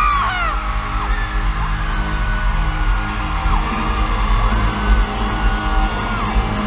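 Live pop concert music in an arena, heavy in the bass, with fans screaming over it: a flurry of high screams at the start, then a few long held screams that drop away.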